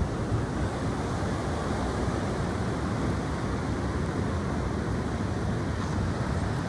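Strong wind blowing steadily, with a low rumble of wind buffeting the microphone.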